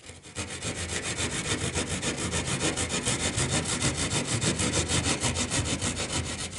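Hand drywall jab saw cutting through sheetrock with rapid, even back-and-forth strokes, making the horizontal cut of an old-work box opening first to check for a stud.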